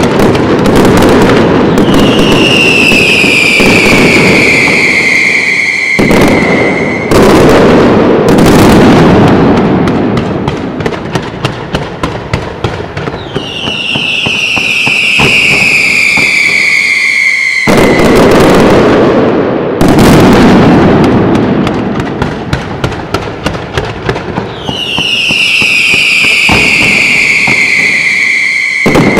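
Fireworks display: dense crackling and banging of firework bursts, with three long whistles that each fall in pitch over about four seconds. Twice the barrage thins to scattered separate cracks.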